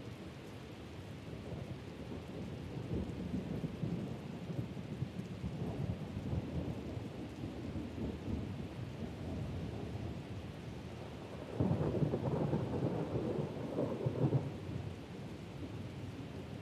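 Steady rain with thunder rumbling low underneath, swelling a few seconds in. About eleven and a half seconds in, a louder peal of thunder breaks suddenly and rumbles for about three seconds before it dies back to the rain.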